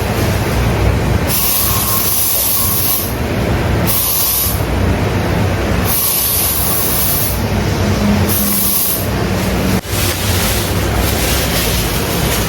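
Steady rumble and road noise of a moving car heard from inside the cabin, with stretches of hiss that come and go every second or two.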